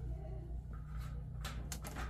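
Air conditioning condenser unit running with a steady low hum, just switched back on after a float switch was wired into its control circuit. A few sharp clicks and rustles of handling come in about one and a half seconds in.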